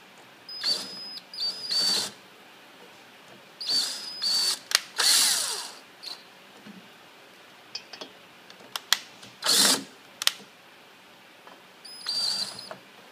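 DeWalt cordless drill/driver run in about six short bursts, each under a second, driving a hex bolt on a steering-wheel adapter to tighten it over a ground wire. Light clicks come between the bursts.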